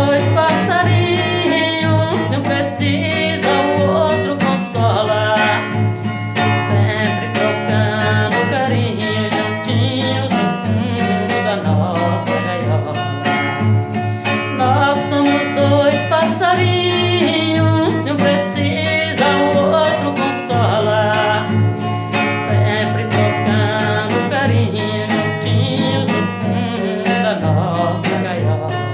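Acoustic guitar (violão) strummed in a steady rhythm, playing a Brazilian sertanejo-style song.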